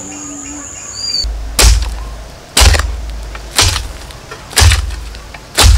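A hoe striking into soil in a steady rhythm, a heavy thud about once a second, starting about a second and a half in. Before that a bird chirps over a steady high buzz.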